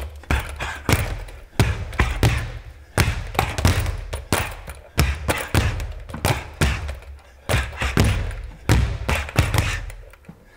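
Leather speed bag being punched in the trapping drill, struck through as it swings away and the punch pulled as it swings back: a string of sharp, unevenly spaced thuds, roughly two a second. The blows thin out and stop near the end.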